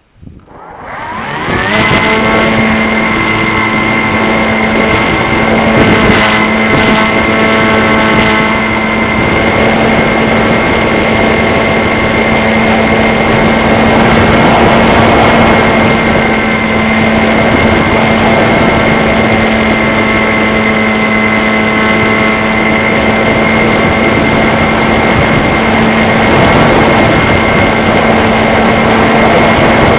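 Model airplane's motor and propeller spinning up from quiet over about two seconds, then running steadily at high throttle with a constant high whine over a lower hum.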